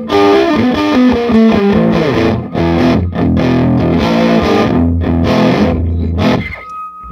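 Telecaster electric guitar played through an Epiphone Valve Junior tube amp, driven into tube overdrive: a riff of single notes and chords that stops near the end and rings out.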